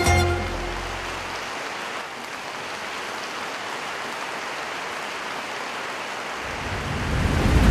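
Audience applauding steadily in a large arena once the music has stopped. Near the end a deep, rising swell builds up.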